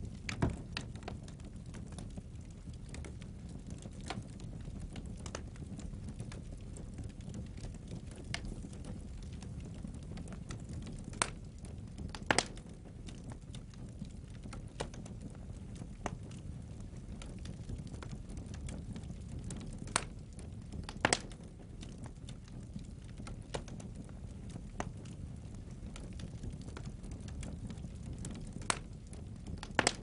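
Wood logs burning in a fireplace grate. Under a steady low rumble of flame there are frequent small crackles and a handful of louder sharp pops, two pairs of them about a second apart.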